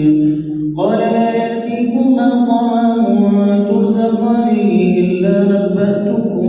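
A man chanting Quran recitation in the melodic tajweed style, his voice drawing out long held notes that slowly shift in pitch. There is a short break for breath a little under a second in.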